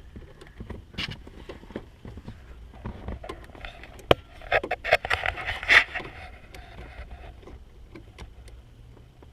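Small plastic clicks, taps and scraping from a car's brake light switch being handled and pushed into its bracket under the dashboard, with one sharp click about four seconds in and a busier stretch of scraping just after it.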